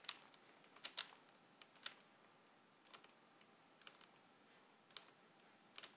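Faint, scattered clicks from a computer keyboard and mouse, roughly one a second, over a low steady hiss.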